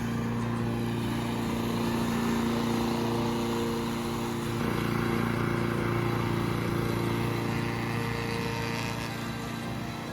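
Small gasoline push-mower engine running steadily under load while mowing, with a steady pitched hum.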